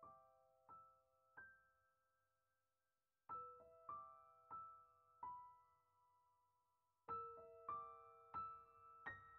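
Faint, soft background piano music: short phrases of single struck notes that ring and fade, with pauses between phrases.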